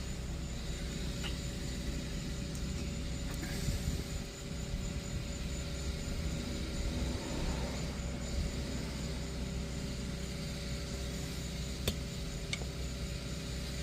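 Steady low mechanical hum, with a few faint metallic clicks as the brake caliper bolts are threaded in by hand.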